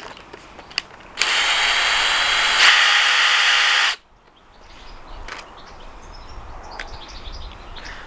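Power drill-driver backing out the flasher relay's mounting bolt. The motor runs for nearly three seconds, speeds up partway, and stops suddenly, followed by faint handling clicks.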